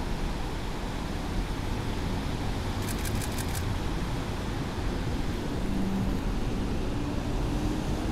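Steady city street ambience: a low traffic rumble and noise off the wet street. About three seconds in there is a quick run of about five faint clicks.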